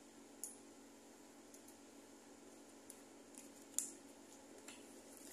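Near silence with a few faint, short crinkles and taps of a paper perfume sample strip being handled and sniffed, the loudest about four seconds in.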